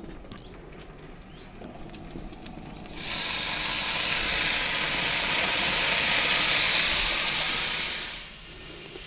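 Bacon strips sizzling on a hot grill plate: a loud, even hiss that starts suddenly about three seconds in and fades out about five seconds later, after a few faint clicks.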